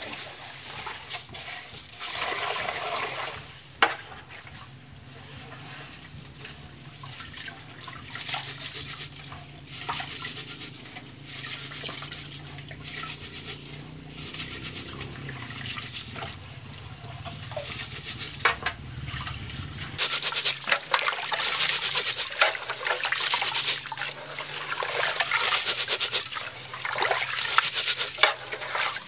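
Rice being washed by hand in a metal pot of water: water poured in from a small metal jug and hands swishing and rubbing the grains, with irregular splashing that gets louder and busier in the last third.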